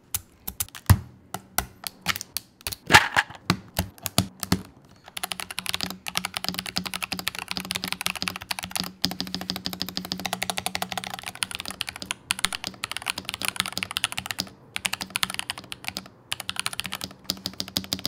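A few scattered plastic clicks of keycaps and switches being handled. Then, from about five seconds in, fast continuous typing on a NuPhy Halo75 mechanical keyboard: first on its stock Rose Glacier switches, then, after brief pauses near the end, on Gateron Baby Kangaroo switches.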